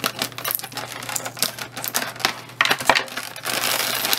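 Clear plastic packaging crackling and clicking in the hands as it is handled and pulled at, with a denser run of crinkling near the end.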